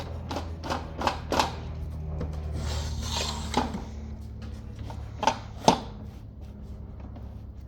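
Workshop handling noises: a series of sharp clicks and knocks, with a short scraping rasp about three seconds in, over a steady low hum.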